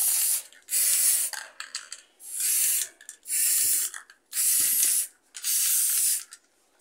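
Aerosol can of gloss white spray paint sprayed in six short bursts, each about half a second to a second long, roughly one a second.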